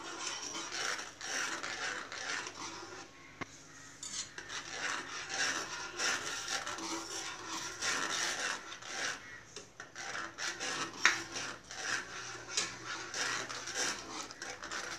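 Steel spoon scraping and rubbing against the bottom of a pan as thick custard is stirred, in repeated irregular strokes with a short lull about three seconds in.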